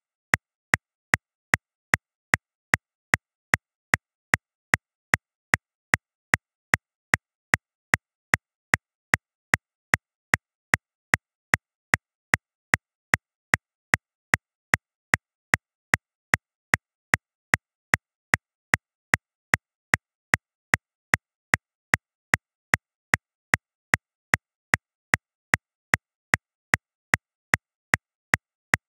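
Metronome clicking steadily at 150 beats per minute, about two and a half even clicks a second with silence between them.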